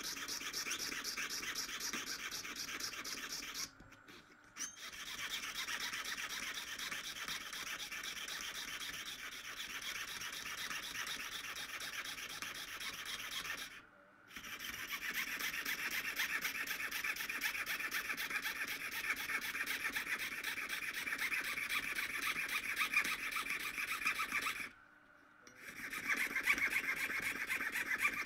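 Jeweler's saw cutting mother-of-pearl shell: a fast, even rasp of short blade strokes that stops briefly three times.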